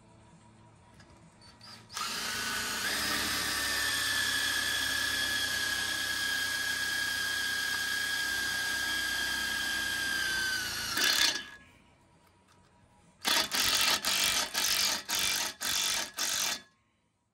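Cordless drill driving a self-tapping screw through a steel frame tie into a steel column. The motor runs with a steady whine for about nine seconds, its pitch sagging slightly just before it stops. After a short pause come about ten short bursts, roughly three a second.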